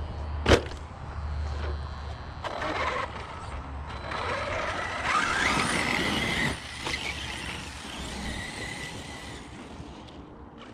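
Brushless electric motor of an Arrma Notorious RC stunt truck (Spektrum 1250kv, on 8S) whining under throttle, its pitch rising about four to six seconds in. A single sharp knock comes about half a second in.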